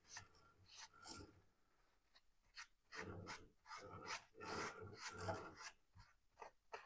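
Gloved hands and a rag rubbing against a steel bar as it is turned by hand in a lathe chuck, in short, irregular scrapes.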